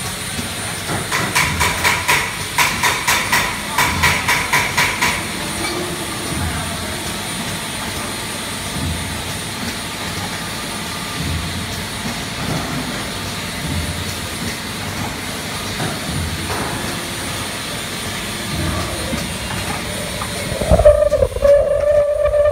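Automatic triangle nylon tea bag packing machine running, with a steady mechanical din and a faint high whine. About a second in, a fast, even chatter with a ringing tone repeats several times a second for about four seconds. Near the end the sound grows louder and a wavering tone joins in.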